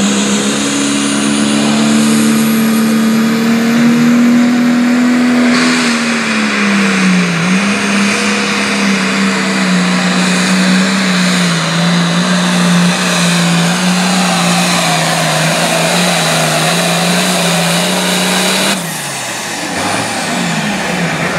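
Case IH pulling tractor's diesel engine at full throttle, hauling a weight-transfer sled, with a high steady whistle over the engine note. The pitch sags about six seconds in as the load builds, then holds steady. Near the end the engine drops away suddenly as the pull ends.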